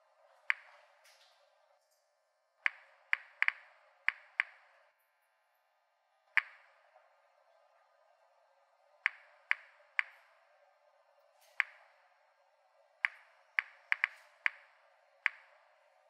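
Mini-Instruments Series 900 Geiger counter clicking at random, irregular intervals: about eighteen short, ringing clicks, some seconds apart and some bunched close together. It is registering the weak radioactivity of a large pile of bananas, from the potassium-40 they contain.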